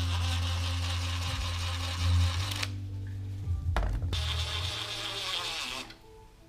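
DeWalt cordless impact driver running in two bursts, the first about three seconds long and the second about two, the second winding down with a falling pitch. It is driving down the screw of a hose clamp that holds fiberglass heat wrap to a motorcycle exhaust pipe.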